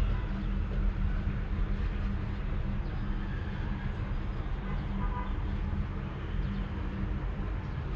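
Cat purring steadily, a low, even, fluttering rumble.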